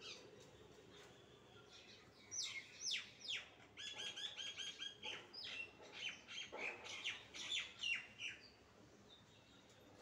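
Rose-ringed parakeet calling, starting about two seconds in: sharp falling chirps, then a quick string of short repeated notes, then more chirps. The calls stop a little after eight seconds.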